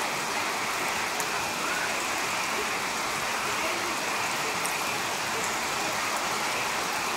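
Steady rain falling on trees, foliage and grass.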